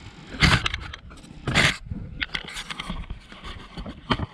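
Camera handling noise as the camera is moved on its clamp: scraping and knocks against the microphone, with two loud rustling bursts about half a second and a second and a half in.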